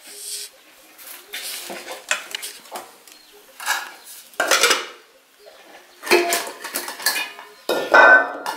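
A metal ladle scraping and clinking against an aluminium saucepan while stew is dished out, in about six separate strokes, the loudest near the end.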